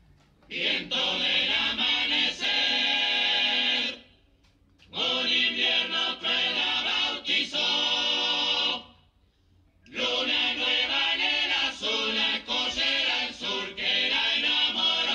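Recorded music with a group of voices singing together in chorus, in three phrases separated by short pauses.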